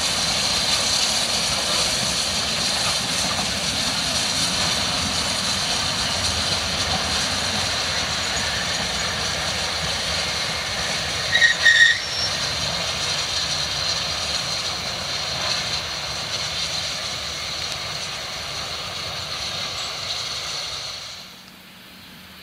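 Steam-hauled vintage train running, a steady rumble and hiss of wheels on rail. About halfway through, two short high tones sound, and near the end the running noise drops away abruptly.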